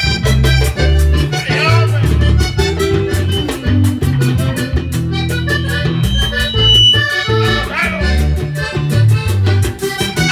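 Vallenato music played live: a button accordion plays chords and runs over stepping low bass notes, with a caja drum keeping a steady beat.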